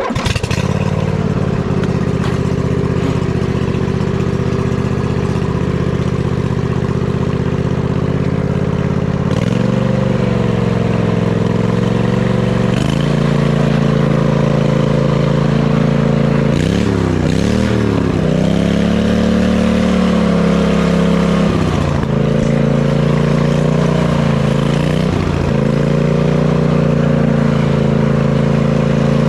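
John Deere D125 riding mower's V-twin engine running loud with its muffler removed, straight piped, while the mower is driven. Its note dips and climbs back several times, most sharply about seventeen seconds in.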